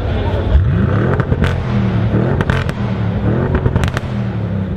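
Audi RS6 Avant's twin-turbo V8 revved three times while stationary, each rise in pitch followed by sharp pops and crackles from the exhaust.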